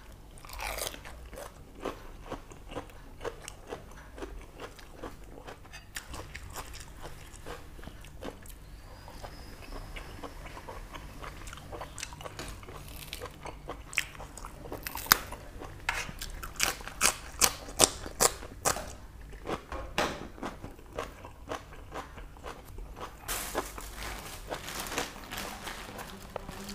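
Close-miked chewing and crunching as boiled pork intestines are eaten with fresh, crisp leaves, with wet mouth sounds between bites. A run of louder, sharper crunches comes about halfway through.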